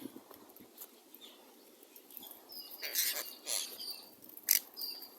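A flock of birds calling while being fed bread: scattered harsh, scratchy calls, the sharpest about four and a half seconds in, mixed with short high thin whistles in the second half.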